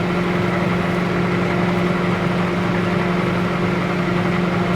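Microwave oven running with a steady hum, heating a Microfleur flower press.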